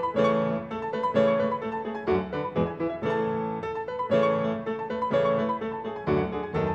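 Background piano music: a steady run of struck notes.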